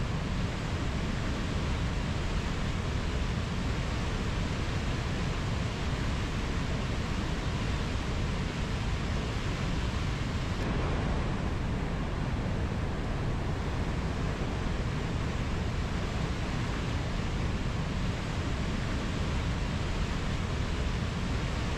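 Waterfall's steady rushing roar of falling water, with a slight change in tone about halfway through.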